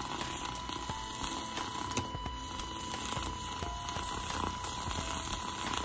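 Handheld milk frother running, its small motor whirring steadily as the spiral whisk spins and froths milk in a bowl.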